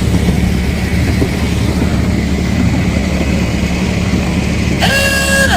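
Train running with a steady low rumble, then a short whistle blast of about three-quarters of a second near the end.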